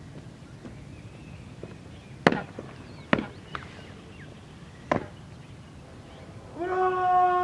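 Sharp boot stamps on a concrete parade ground, three loud and one softer, spread over a few seconds. Near the end a drill command is shouted and held as one long, drawn-out call.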